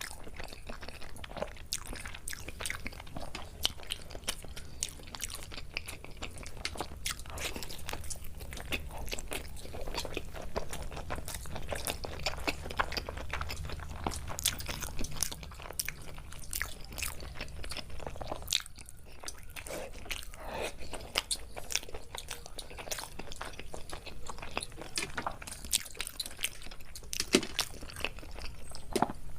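People chewing and biting into chicken biryani and chicken leg pieces: a dense, irregular run of crunches and mouth clicks.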